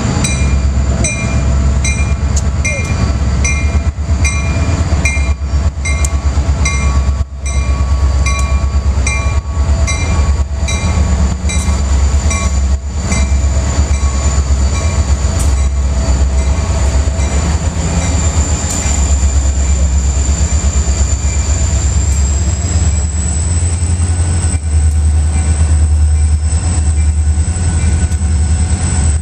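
Two EMD diesel locomotives, a Norfolk Southern SD45-2 with a 20-cylinder engine and a CSX SD40-2 with a 16-cylinder engine, pulling a freight train past at close range with a heavy, steady engine rumble, followed by freight cars rolling by. A high tone pulses about every half second for the first twelve seconds or so. A high steady whine rises slightly in pitch about two-thirds of the way through.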